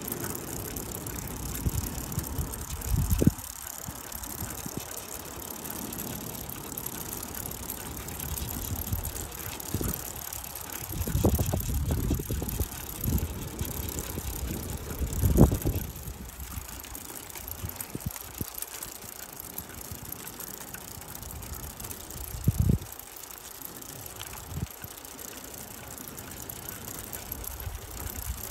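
Bicycle being ridden: steady tyre and riding noise with wind hiss, broken by several short thumps from bumps, the loudest about fifteen seconds in.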